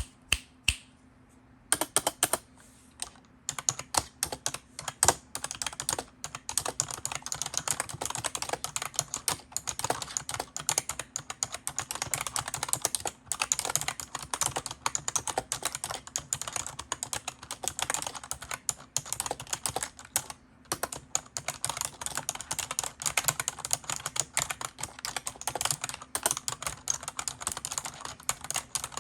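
Fast typing on a keyboard: a dense, continuous run of key clicks. A few scattered strokes and a short pause come first, then the steady typing starts about two seconds in, with brief breaks partway through.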